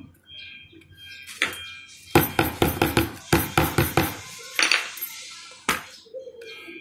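Small hammer tapping plastic strips laid on a fabric bag panel against a hard work board. There is a single tap, then a quick run of about ten taps at roughly five a second, then three scattered taps.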